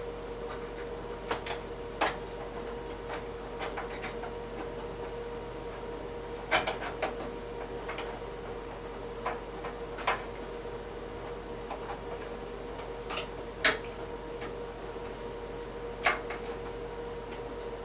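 Scattered sharp clicks and light knocks, about ten spread unevenly, of washer parts being handled during a repair, over a steady hum.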